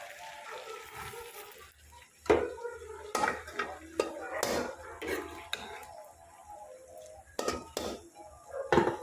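Metal spoon knocking and scraping against a metal kadai in irregular clinks while boiled rice is spooned in as a layer over chicken korma for biryani.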